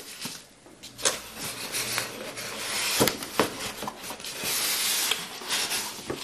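Polystyrene foam packing blocks rubbing and scraping against the inside of a cardboard box as they are worked loose by hand, with a few sharp knocks, the loudest about three seconds in.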